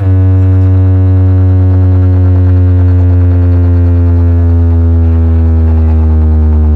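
One long, very loud synthesized bass note with a stack of overtones, held unbroken and sinking slowly in pitch: a bass drone from a DJ sound-check remix meant to test the bass. It gives way to a pulsing pattern right at the end.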